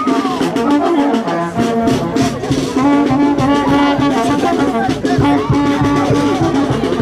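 Brass band playing a march-like tune in held, sustained notes, with a steady low drum beat coming in about a second and a half in.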